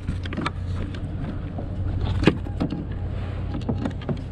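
Scattered knocks and taps on a plastic kayak as gear is moved about, the loudest a sharp knock a little past the midpoint, over a steady low rumble.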